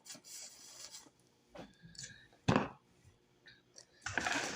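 Close-up mouth sounds of sucking and slurping the marrow juice out of a cooked cow foot bone, in short noisy draws, with one sharp, louder sound about two and a half seconds in.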